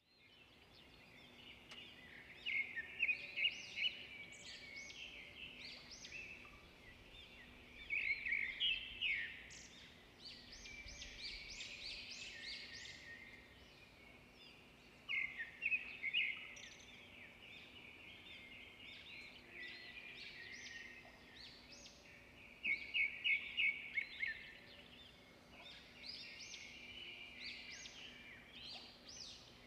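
Birds singing in short bursts of rapid, high chirping notes that recur every several seconds, over a faint steady hum.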